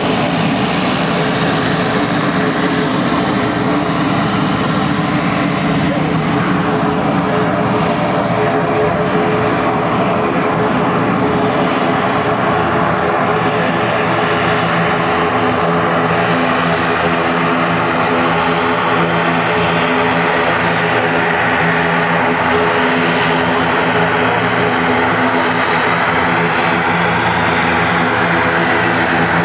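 Turboprop aircraft taxiing with their engines running steadily and the propellers humming. First comes the single turboprop of a Pilatus PC-12, then the twin turboprops of a CASA C-295 transport as it draws closer. A deeper, steady engine hum grows stronger about halfway through.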